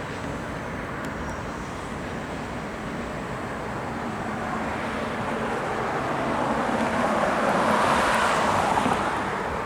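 Road traffic passing, a steady rolling noise that swells as one vehicle goes by close about seven to nine seconds in, then drops back.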